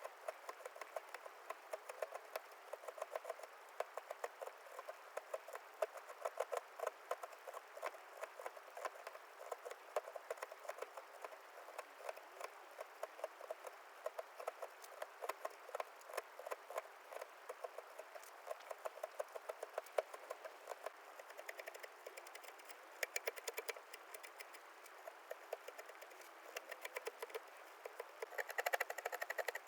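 Hand carving tools cutting into cherry wood: many quick, irregular small clicks and scrapes as chips are pared away.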